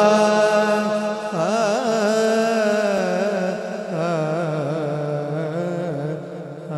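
A man's voice sings a long, drawn-out melismatic note of a naat, the pitch wavering up and down, over a steady held drone. The sound grows softer near the end.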